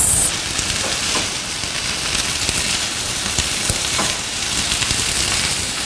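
Cauliflower, carrots, peas and bell pepper sizzling steadily in a hot nonstick frying pan while being stirred and turned with a spatula, with a few short scrapes as the spatula moves through the pan.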